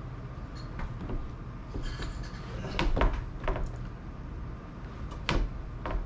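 Windshield glass and its rubber lock-strip seal being handled and worked into the frame: a series of knocks and clunks, the loudest about three seconds in and again just past five seconds.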